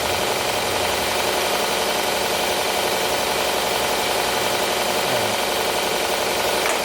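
Wen 6x48 belt sander running steadily while a steel knife blank is ground against the belt, a constant motor hum under a continuous grinding hiss.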